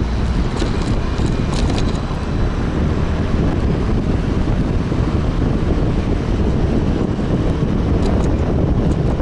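Wind rushing over the microphone with the running engine and tyre noise of a Suzuki Address 125 scooter riding at steady speed. A few light clicks sound in the first two seconds.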